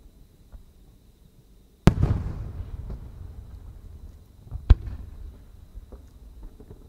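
Aerial firework shells going off: a loud boom about two seconds in that rolls and echoes for a second or more, then a second, sharper bang near five seconds.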